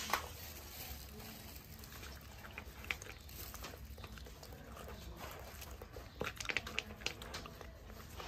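A small dog eating from a dish of rice mixed with dry kibble and shredded chicken: scattered chewing clicks, with a quick run of them about six seconds in.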